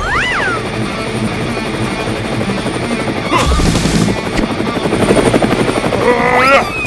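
A steady, fast chopping mechanical sound, like a helicopter rotor, mixed with music. A rising-and-falling whistle comes just after the start, and a quick run of rising electronic chirps comes near the end.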